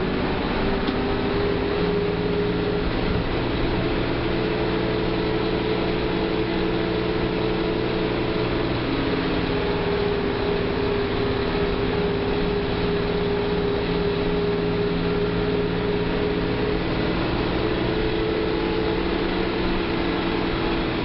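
Diesel engine of a Mercedes-Benz OF 1318 bus running steadily, its pitch holding nearly constant with only slight drifts.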